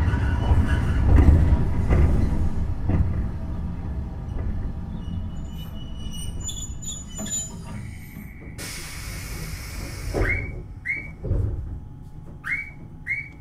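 Keifuku Randen tram car 631 slowing to a stop at a station: the running rumble of wheels on rail dies away over several seconds with light squeaks and clicks, then a burst of air hiss about nine seconds in, followed by four short rising tones.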